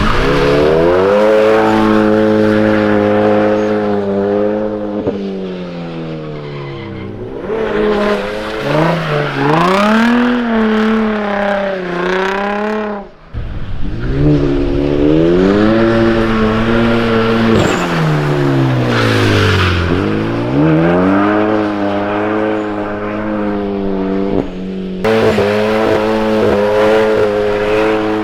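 Car engine revving hard, its pitch climbing and falling again and again as the car is thrown into slides, with tire skidding noise under it.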